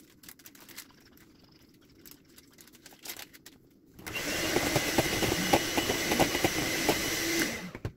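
Electric hand mixer, by its owner's account a weak one, whipping eggs for sponge-cake batter in a bowl. It switches on about halfway through, runs at a steady pitch and cuts off abruptly just before the end. Before it starts there are only faint light clicks.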